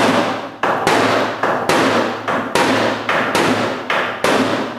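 Hammer pounding on the sheet-metal fender of a Toyota Land Cruiser against a backing tool held behind it, to knock out a large dent. About two sharp blows a second, each ringing briefly.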